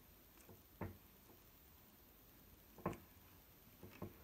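Near silence broken by a few soft taps and squishes from a finger pressing into a coil of slime held in the palm, the loudest about three seconds in.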